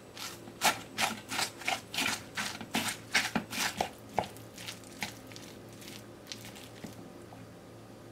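Wooden spatula stirring crushed umaibo corn puffs, shredded cabbage and raw egg in a clear bowl to mix okonomiyaki batter. It makes quick scraping strokes, about three a second, which thin out to a few fainter strokes after about four seconds.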